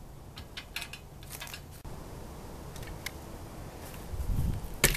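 Light metallic clicks and taps from a steel tube table frame being lifted and carried, then a low bump and a single sharp, loud click near the end.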